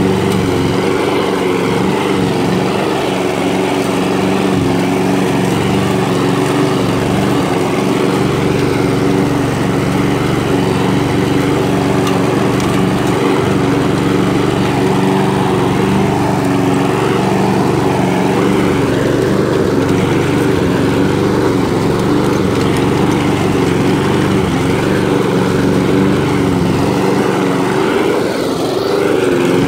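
Gas walk-behind lawn mower engine running steadily at constant speed while cutting grass.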